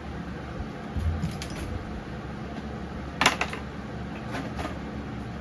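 A few light clicks and knocks of handling, with a sharp click a little over three seconds in, over a steady low hum.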